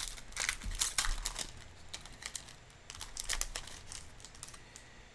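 Plastic foil wrapper of a Magic: The Gathering booster pack being torn open and crinkled by hand: a run of sharp crackles, densest at first and thinning out about four seconds in.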